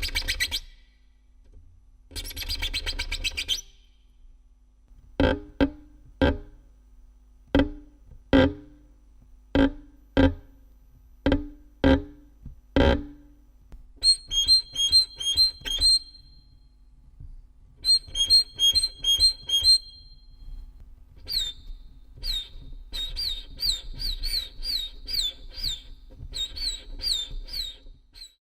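Violin played as a sound-effect instrument: two short bursts of rapid scratchy bowing, then a run of single plucked low notes about one a second. After that come quick high trills in short clusters and, near the end, a series of short downward-sliding high chirps.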